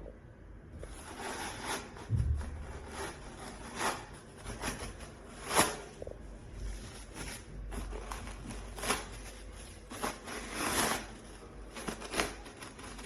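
Irregular knocks, clacks and rustling of objects being handled and set down, with a low rumble underneath.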